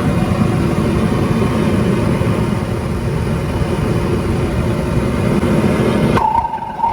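Tank-fed gas burner of a homemade furnace running with a steady rushing noise, then dropping sharply about six seconds in as its gas valve is turned down. A brief steady tone sounds at the drop.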